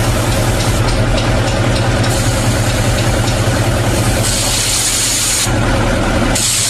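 Hino Profia truck's air tank drain valve pulled open, compressed air hissing out with a spray of accumulated water, draining condensate from the air tank, over the steady idle of the truck's diesel engine. The hiss grows louder about two seconds in and again around four seconds, stops briefly near the end, then starts again.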